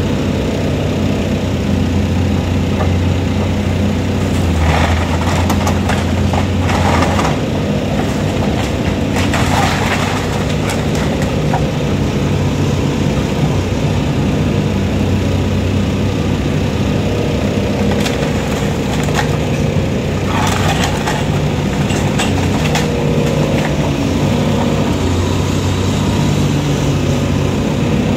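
Heavy demolition machinery running steadily on its diesel engine, with bursts of cracking and crushing as building material is broken apart, about five seconds in, about ten seconds in and again around twenty seconds in.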